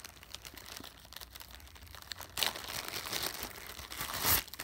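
Clear plastic wrapping around a pair of ski goggles crinkling as it is handled and pulled off by hand, louder in the second half and loudest shortly before it stops.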